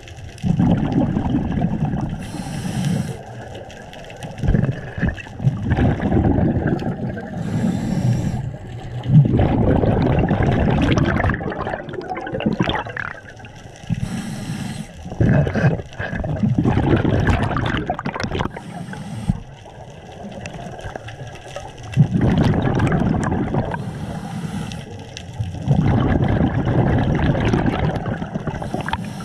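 Scuba diver breathing through a regulator underwater: long gurgling bursts of exhaled bubbles every few seconds, with short hisses between them.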